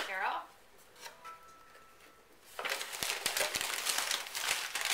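Tissue paper being pulled from a gift box, crinkling and rustling from about halfway in, after a brief voice at the start.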